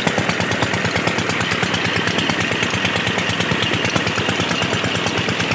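Old 16 hp Pakistani-made CB diesel engine running steadily with a rapid, even beat while pumping. Water gushes and splashes from a 6-inch delivery pipe over it.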